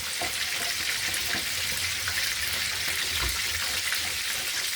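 Dormer sausages sizzling steadily as they fry in a pan, with small crackles.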